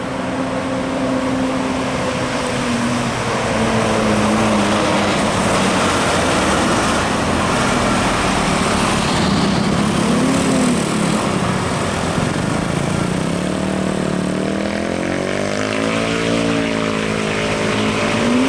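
Large bus passing with its engine running. A loud rushing noise fills the middle, and near the end the engine note dips and rises again.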